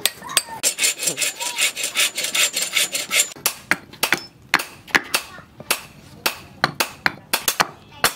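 A quick run of scraping, saw-like strokes on wood, then a blade chopping into a piece of red hardwood on a wooden block, with sharp separate knocks about twice a second.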